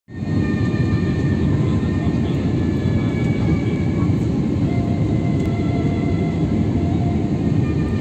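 Steady low rumble of engine and airflow noise heard inside the cabin of an Airbus A320-family airliner descending on approach, with a faint high engine whine above it.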